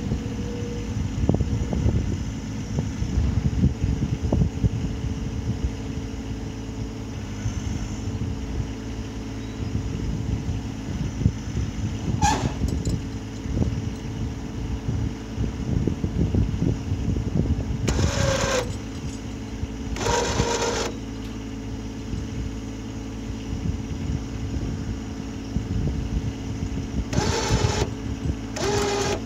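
Compact tractor engine running steadily, with a rough low rumble, while its front loader works. Several brief, louder, higher noises break in about 12, 18, 20, 27 and 29 seconds in.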